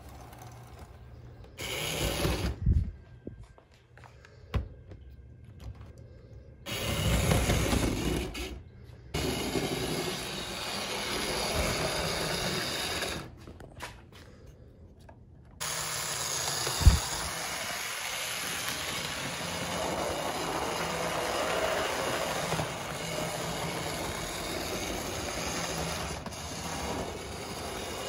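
Small electric motor of a 1963 Tri-Ang Davy Crockett model locomotive whirring as it runs along the track, in several stretches broken by sudden gaps and then running steadily, with one sharp knock partway through. It runs poorly on this track, which the owner puts down to its wheel flanges being too big for the rails.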